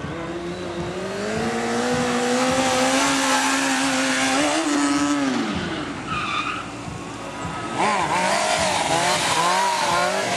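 Stunt motorcycle engine held at high revs, its pitch creeping up for about five seconds before it drops away. Later another motorcycle revs with a wavering tyre squeal as it is ridden hard into a stunt.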